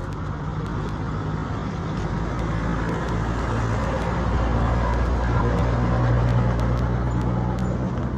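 An engine running close by, a steady low hum over traffic noise that grows louder toward the middle and eases a little near the end.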